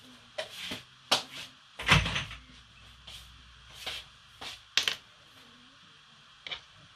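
Irregular clicks and knocks of kitchen items being handled on a counter while measuring baking ingredients, with one heavier thump about two seconds in.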